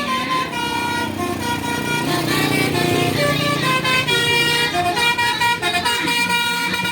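Tour bus's Basuri 'telolet' multi-tone air horn playing a melody of short, steady notes that step from pitch to pitch. The bus engine rumbles underneath.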